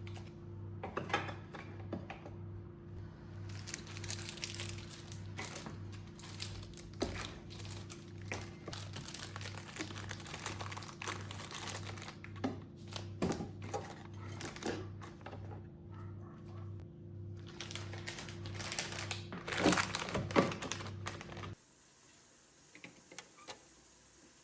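Packaging crinkling and rustling, with small knocks and clicks, as things are handled. Under it runs soft background music with a steady low pulse, which cuts off abruptly near the end, leaving quiet room tone.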